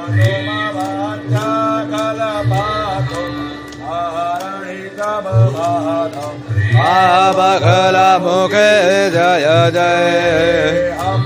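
Devotional chant-style singing over a steady drone, with low drum strokes about once a second; the singing grows fuller and louder about seven seconds in.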